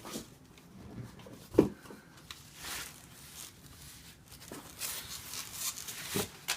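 Cardboard shipping box and its packing being handled and opened: scattered knocks and scraping, a sharp thump about one and a half seconds in, and rustling in the second half.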